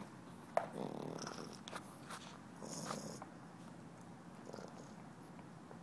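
French bulldog puppy gnawing a rubber teething toy: a steady low rumble of breath and chewing, with several sharp clicks of teeth on the rubber in the first three seconds, the loudest about half a second in.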